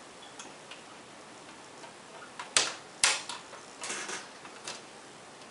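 Plastic display bezel of a Toshiba C650 laptop being pressed onto the screen lid, its clips snapping into place. Two sharp clicks about half a second apart come a little past the middle, followed by a few softer clicks.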